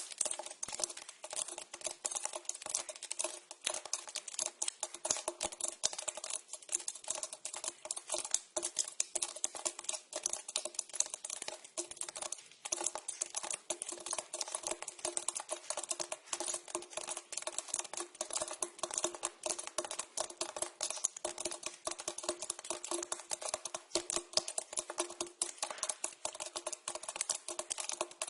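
Water dripping into a pipe: a fast, irregular patter of many small drops. It carries a steady ring from the pipe underneath.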